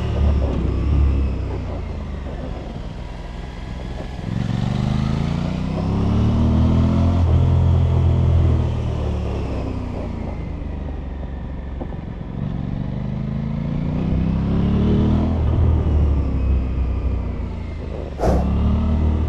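Aprilia RS 660 on its stock exhaust, the 659 cc parallel-twin engine heard onboard as the bike is ridden through bends. It accelerates hard twice with the pitch rising, and eases off in between. A single sharp crack comes near the end, after which the engine pulls again.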